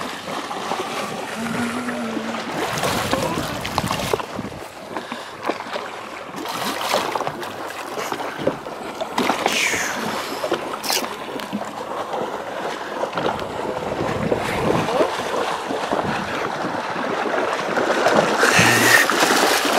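Sea water lapping and splashing against a boat's hull, with wind on the microphone.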